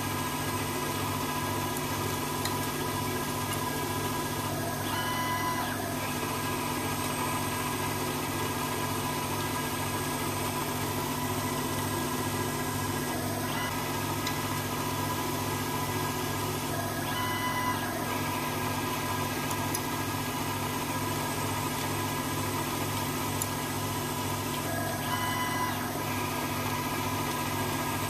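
Emco Turn 120 CNC lathe turning a metal shaft: the spindle and axis drives run with a steady hum and whine and a regular low pulsing, while the insert cuts and chips come off. The tone changes briefly a few times along the way.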